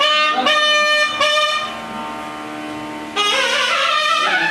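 Nadaswaram playing a melody over a steady drone note. About halfway through it holds one long, softer note, then returns louder with moving notes a little after three seconds in.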